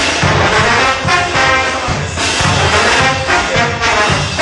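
Brass band playing a morenada: trombones and trumpets carrying the tune over a steady drum beat.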